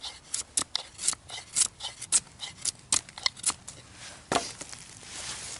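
A Scandi-ground TBS bushcraft knife shaving curls off a split stick of wood: a quick run of short scraping cuts, about three a second, with one louder stroke about four seconds in, after which the cuts stop.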